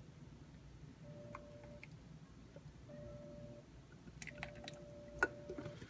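Faint light clicks and taps of handling, the loudest about five seconds in, over a low hum and a faint steady tone that comes and goes.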